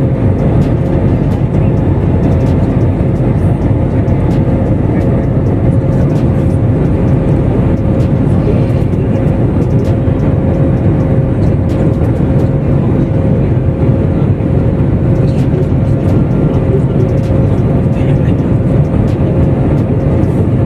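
Steady rushing noise of a jet airliner's engines and airflow heard inside the cabin at cruise, with a steady hum running through it.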